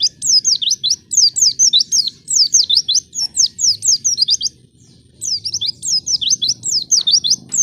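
Pleci (white-eye) singing a fast, chattering run of high chirps that sweep up and down. The song breaks off briefly about two-thirds of the way through, then starts again.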